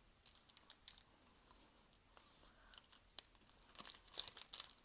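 Faint, scattered crinkling of a plastic snack wrapper mixed with soft chewing of a chocolate-filled crepe. The clicks are sparse at first and come thicker near the end.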